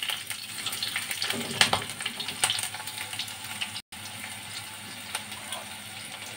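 Garlic, green chillies, fenugreek and ginger sizzling and crackling in hot mustard oil in a metal kadhai, with a metal ladle stirring and scraping the pan for the first few seconds. The sound cuts out briefly just under four seconds in, after which the frying goes on more quietly and evenly.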